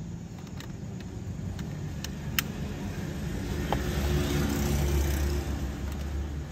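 Low, steady vehicle engine rumble that grows louder about four seconds in, with a sharp click about two and a half seconds in.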